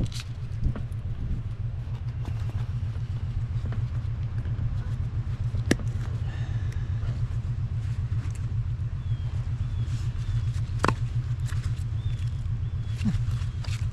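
An engine running steadily with a low, evenly pulsing rumble. A few sharp clicks and knocks come on top, two of them standing out about six and eleven seconds in.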